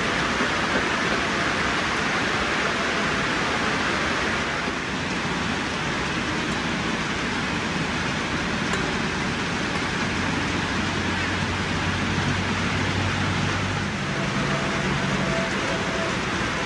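Steady rain falling, an even hiss. About ten seconds in, a low hum joins it, and it shifts to higher tones near the end.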